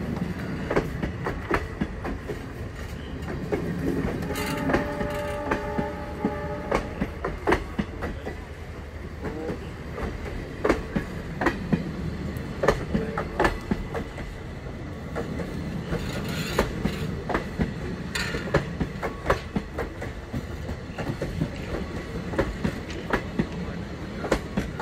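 Passenger train coaches running on the track: a steady rumble with repeated clickety-clack of the wheels over rail joints. A short steady pitched tone sounds for about three seconds about four seconds in.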